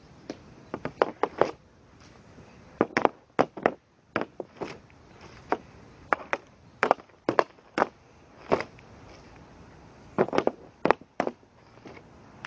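Hockey stick blade clacking on a plastic shooting pad as a puck is stickhandled and shot: sharp knocks, often in quick bursts of several taps, with single louder slaps from the shots.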